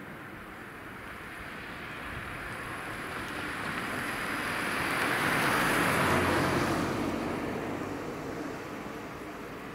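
A car passing close by: its tyre and engine noise swells gradually, peaks about six seconds in, then fades away.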